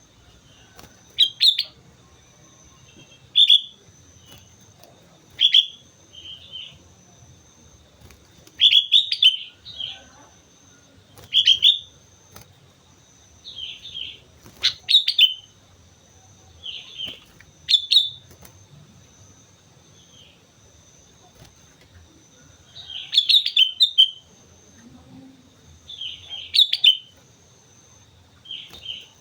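Sooty-headed bulbul (kutilang) singing: short, separate calls repeated every one to three seconds, a dozen or so in all.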